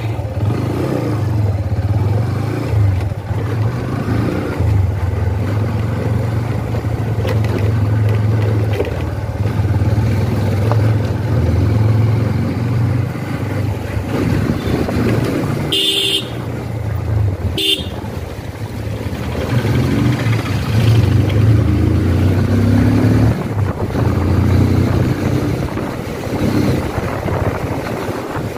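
TVS Apache RTR 160 single-cylinder engine running steadily as the motorcycle rides along at low speed. Just past halfway there are two short horn toots, about a second and a half apart.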